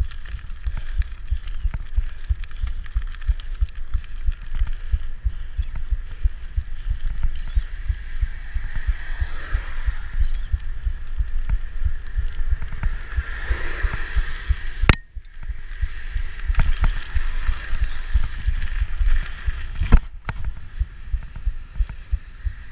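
Wind buffeting the microphone over the rumble and jolts of a rigid 1990 Peugeot Hurricane mountain bike riding over road shoulder and concrete path, as a dense low rumble full of irregular thumps. Two sharp knocks come about two-thirds of the way through and near the end.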